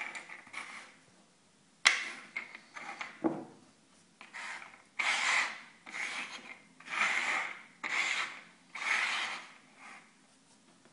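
Small round objects being slid and shuffled by hand across a wooden tabletop: a sharp knock about two seconds in, then about five rasping scrapes under a second apart.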